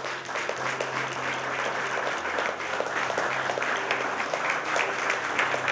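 A small group of people applauding, with dense rapid handclaps throughout.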